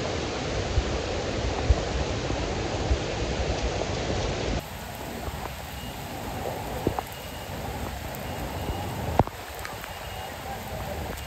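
Heavy rain falling in a steady hiss. About four and a half seconds in it cuts to a quieter stretch of rain with a few sharp taps.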